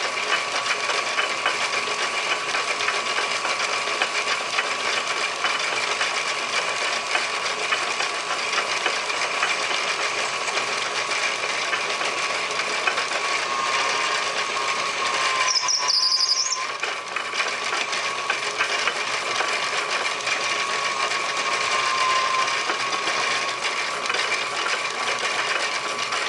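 Metal lathe running while its cutting tool turns a cast brass piston on a mandrel: a steady whine from the machine over a continuous scratchy cutting noise. About sixteen seconds in there is a brief high-pitched squeal and the sound dips for a moment before the cut carries on.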